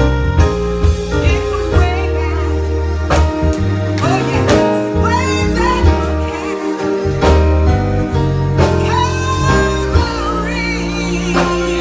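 Gospel music: singing over a sustained bass line and regular drum beats, with the voices strongest from about three seconds in.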